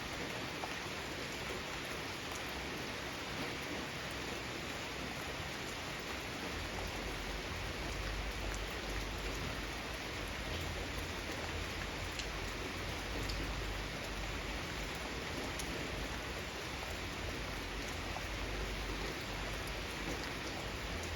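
Steady rain falling in a garden, with individual drops ticking on surfaces. A low rumble joins in underneath from about a quarter of the way in.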